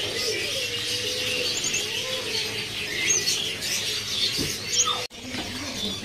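Many caged songbirds chirping and twittering at once, short scattered calls over a low steady hum; the sound cuts out for an instant about five seconds in.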